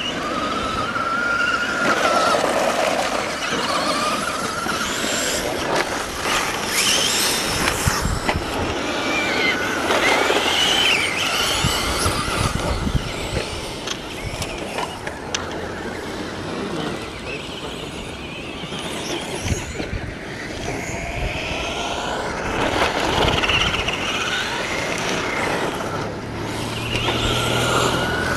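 1/10-scale radio-controlled stadium trucks racing: several small motors whining, rising and falling in pitch as they accelerate, brake and pass.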